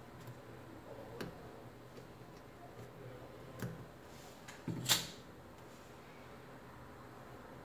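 A few small clicks and taps from metal tweezers and fingers handling an opened smartphone on a silicone repair mat. The loudest is a sharp double tap about five seconds in.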